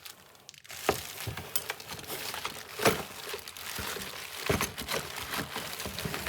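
Packaging being rustled and crinkled as items are taken out of a parcel, with several sharp clicks and knocks, the loudest about a second in, about three seconds in and halfway through.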